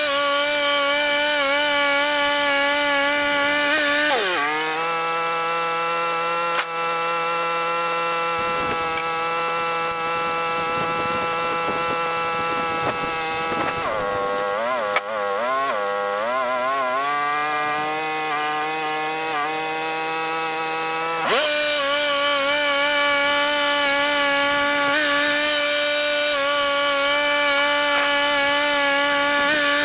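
Portable sawmill's gas engine running steadily while sawing a pine log, its pitch dipping about four seconds in, wavering and sagging under load around the middle, and rising again a few seconds later.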